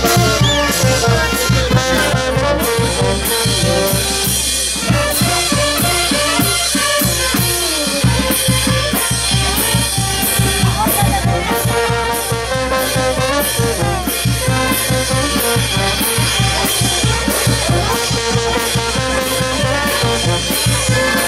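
Andean brass band with drums playing dance music, with a steady beat of about two drum strokes a second.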